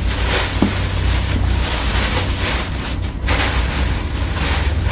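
Steady, loud rushing air noise on the microphone with a deep rumble underneath.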